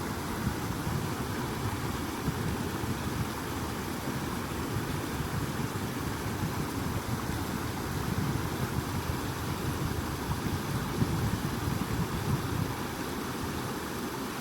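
Flowing water rushing steadily, a deep, even wash of sound.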